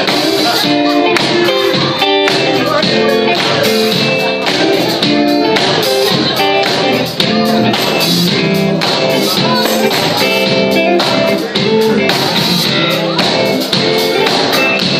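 Band music led by guitar, with a voice singing.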